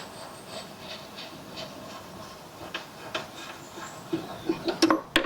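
Faint scattered clicks and knocks of someone moving about and handling things, then a few sharp, loud knocks close together near the end.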